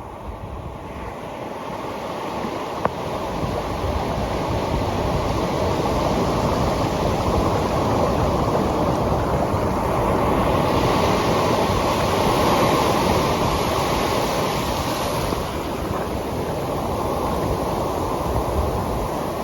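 Ocean surf washing steadily, growing louder over the first several seconds, with wind rumbling on the microphone. A single sharp click just before three seconds in.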